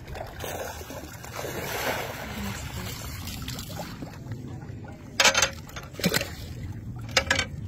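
Water sloshing and splashing as a landing net full of catfish is scooped out of a keep net, with a few sharp, loud splashes in the second half.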